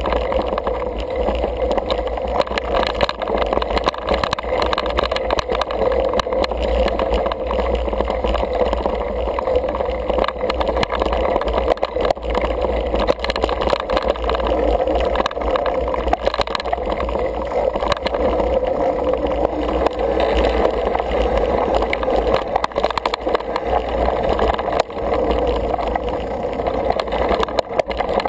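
Steady wind rush on the camera microphone and tyres rumbling over dry dirt singletrack as a single-speed 29er mountain bike is ridden, with frequent small knocks and rattles from bumps in the trail.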